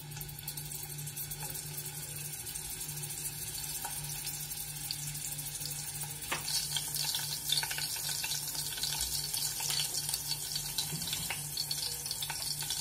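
Chopped garlic starting to sizzle in hot oil in a steel pot: a soft hiss with scattered crackles that get busier and louder about halfway through as the oil bubbles up around the garlic. A steady low hum runs underneath.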